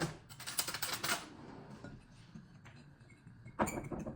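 Rapid light clicking from kitchen utensils at a bowl of seasoned flour for breading. There is a short run of clicks at the start and another near the end.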